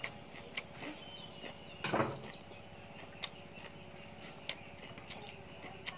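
Close-up chewing of raw leafy vegetables: scattered sharp mouth clicks and crunches, with one louder, longer crunch about two seconds in.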